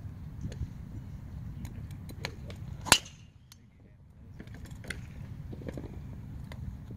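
A golf driver striking the ball once: a single sharp, loud crack about three seconds in. Fainter clicks of other golfers' shots are heard around it.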